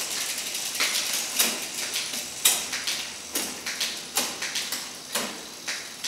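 Bicycle chain running over an 11-speed 11-50 tooth cassette as the crank is turned by hand, with a sharp click roughly once a second as the chain shifts from cog to cog.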